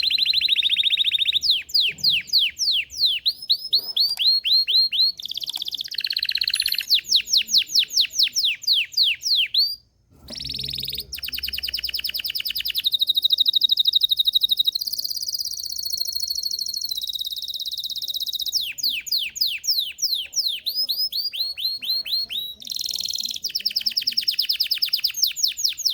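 Belgian canary (domestic canary) singing a long song of rapid trills, each made of quickly repeated downward-sweeping notes, alternating with steadier buzzy rolls. The song breaks off briefly about ten seconds in, then resumes.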